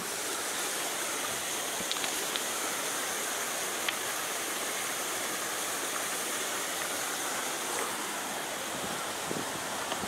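River water rushing steadily over a rock shelf at the top of a waterfall, an even hiss with no break.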